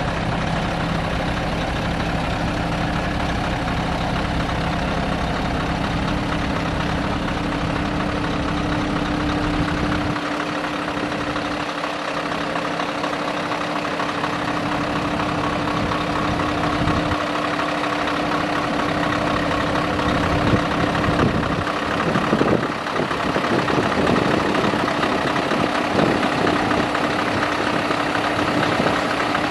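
Scania R620's V8 diesel engine idling steadily; its deep low rumble falls away about ten seconds in.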